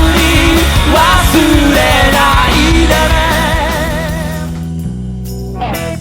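Live band playing a rock-style cover of a Japanese pop song, with a sung melody over drums and guitar. The music fades down over the last couple of seconds.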